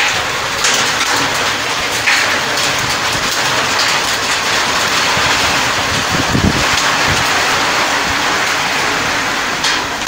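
Heavy rain mixed with hail pelting the ground, a loud steady hiss with scattered sharp ticks of hailstones striking. A short low rumble comes about six seconds in.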